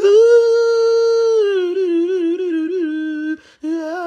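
Arctic wolf howling: one long call held at a steady pitch for over a second, then sliding lower and wavering. It breaks off briefly near the end and a second howl begins.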